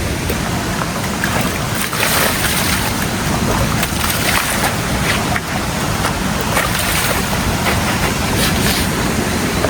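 Steady rushing water with irregular splashes, loud and continuous.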